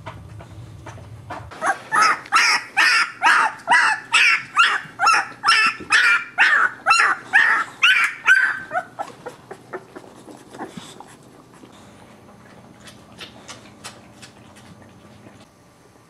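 Boxer puppy yelping in a rapid run of high cries, about three a second, for some seven seconds, then trailing off into a few fainter cries. These are distress cries from a puppy stuck hanging over a ledge.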